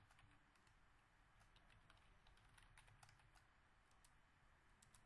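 Faint, irregular keystroke clicks on a computer keyboard as a password is typed.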